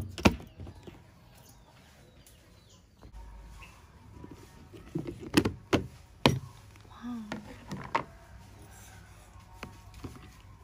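A few sharp plastic clicks and knocks from a plastic food tub's snap-on lid being pressed shut and then handled, with quiet stretches between.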